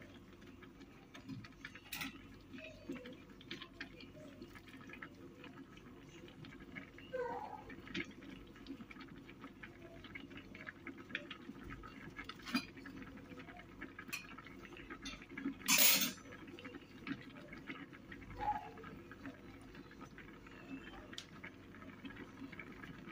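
Faint handling sounds at a cooking pot of rice: small crackles and clicks over a low steady hum, with a few sharp knocks and one brief, louder rustling burst about two-thirds of the way through.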